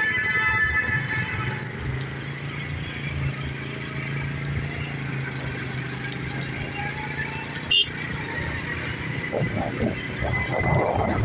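Motorcycle engine running steadily while riding in city traffic, with road and wind noise. A vehicle horn sounds briefly near the start, and there is one sharp click about eight seconds in.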